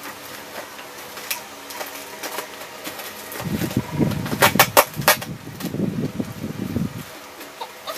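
Bubble-wrapped plastic parcel being handled and cut open with scissors: crinkling and rustling packaging through the second half, with a quick run of sharp snips and clicks about halfway through.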